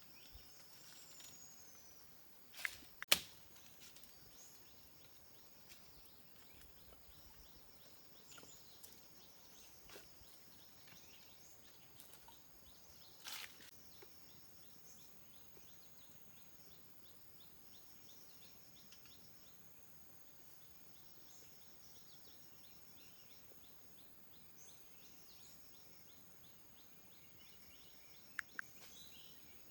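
Rainforest ambience: a steady high-pitched layer of insects and birds chirping, broken by a few sharp knocks, the loudest a pair about three seconds in and two more near the end.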